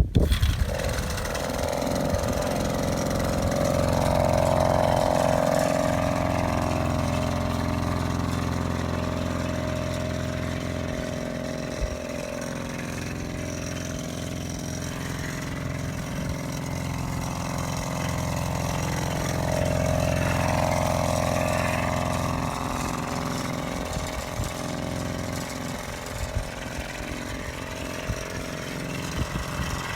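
Small engine of a motorized bicycle kit catching right at the start and running, swelling louder and higher twice as it is revved. It runs but not yet smoothly tuned: the carburetor still needs adjusting.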